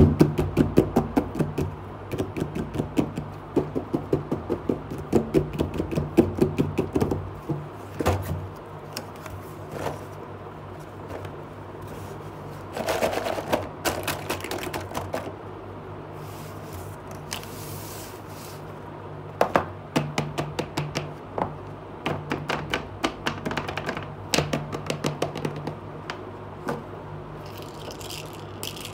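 Plastic shrink-wrap crinkling and crackling as it is pulled off a cardboard toy box, then small plastic toy pieces clacking and rattling as they are handled in the box, in rapid runs of clicks with pauses between. A steady low hum runs underneath.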